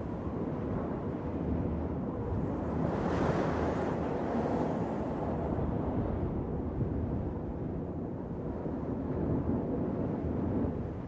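Wind blowing over the sea with waves surging, a steady rushing noise heavy in the low end, swelling louder about three seconds in.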